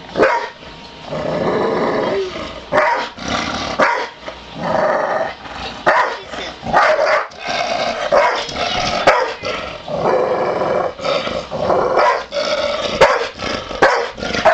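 Pit bull barking loudly in repeated bursts, some short and some drawn out, as alarm barking at an apparent intruder at the window.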